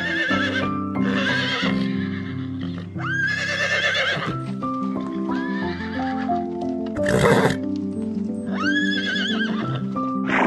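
Horse whinnying repeatedly: about five wavering, high neighs, with a short breathy burst about seven seconds in. Background music with held notes plays underneath.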